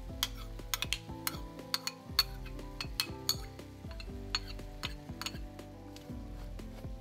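A cooking utensil clinking and scraping against cookware in a run of sharp, irregular clicks, over background music.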